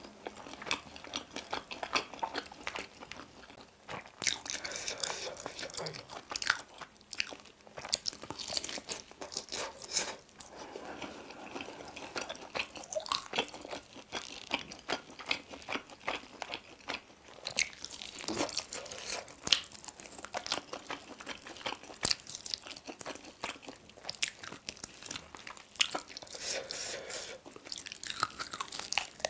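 Biting and chewing sauce-coated baked chicken: many small crunches, clicks and smacks of eating, with no break.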